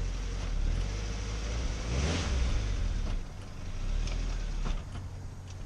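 Car engine running, with a brief rise in level and pitch about two seconds in.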